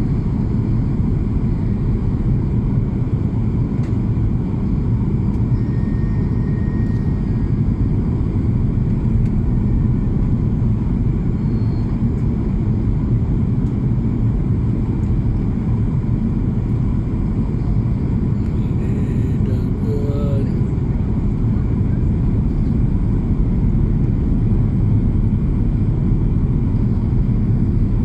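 Airplane in flight: a loud, steady, low rumble that holds level throughout.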